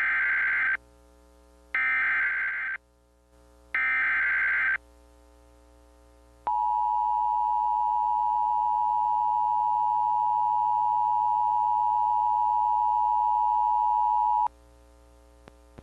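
Emergency Alert System activation: three one-second bursts of SAME digital header data, then a steady attention tone held for about eight seconds that cuts off sharply, heralding a severe thunderstorm warning. A faint steady hum lies underneath.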